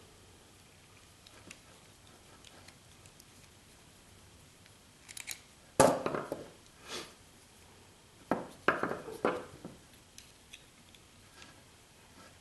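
Metal strain-relief clamp on a dryer power cord being handled and unscrewed: scattered clicks, one loud sharp clack about halfway through, and a quick run of clacks and knocks a few seconds later.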